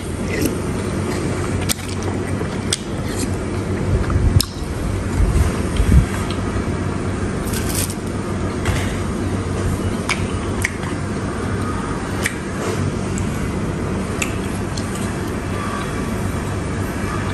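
Metal spoon and chopsticks clicking now and then against a disposable bowl of soup, with a couple of duller thumps, over a steady low background rumble.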